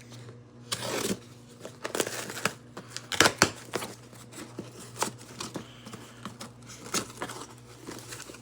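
A pocketknife blade cutting open a shipping package: irregular rasping cuts, the loudest about three seconds in, mixed with crinkling of the packaging.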